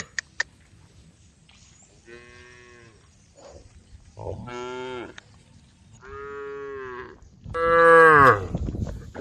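Cows mooing: four separate moos, each about a second long, the last one the loudest. Two sharp clicks come just before the first moo.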